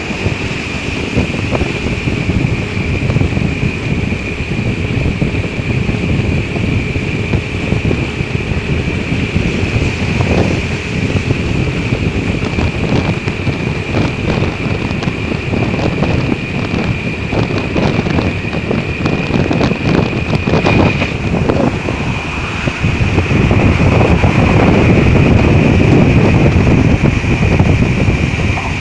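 Wind rushing and buffeting over the microphone of a vehicle moving fast along a bridge, over the rumble of road and engine noise and a steady high whine. It grows louder near the end.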